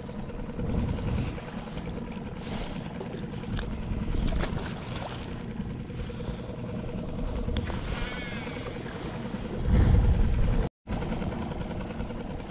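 Wind buffeting the microphone over a steady low hum, with stronger gusts about a second in and again near the end; the sound cuts out for an instant shortly before the end.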